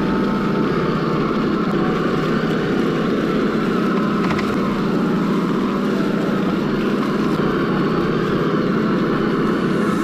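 Traxxas TRX4 RC crawler, driven by a Hobbywing AXE brushless motor, running over dry fallen leaves: a steady rustle and crunch of leaves under its tyres, with the drivetrain running underneath.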